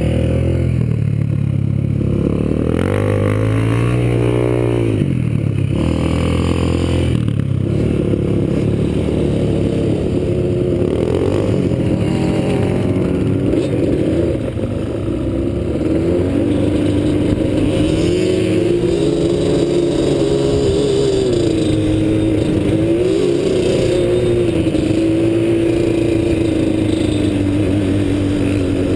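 Yamaha sport quad's engine heard from on board while riding over sand, revving up and down a couple of times in the first several seconds, then running at a steadier pitch that wavers with the throttle.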